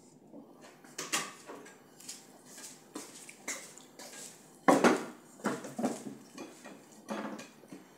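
Ceramic cups and dishes clinking and knocking as they are handled and set down on a table, a series of separate knocks with the loudest a little under five seconds in.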